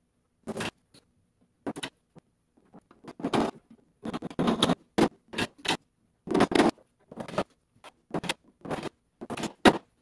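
Irregular run of short scrapes and knocks from hands working on the laminated panels of a desk cabinet being assembled. The sounds are sparse at first and come thicker and louder after about four seconds.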